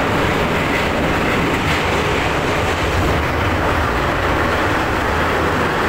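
Saint Petersburg metro train running at speed through a tunnel, heard from inside the car: a steady, loud rumble of wheels on the rails.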